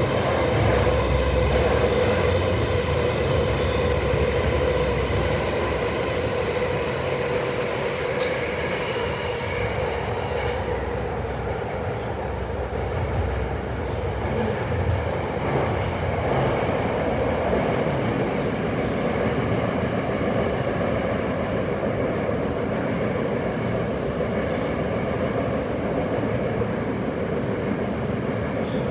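Tokyo Metro Hanzomon Line subway train running between stations, heard from inside the passenger car: a steady rumble of wheels and running noise with an even hum on top.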